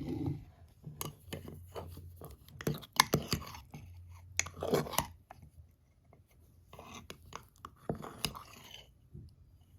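A utensil stirring thick chocolate mug-cake batter in a mug: irregular scraping, squelching and clicking strokes against the mug, with a short lull a little past the middle.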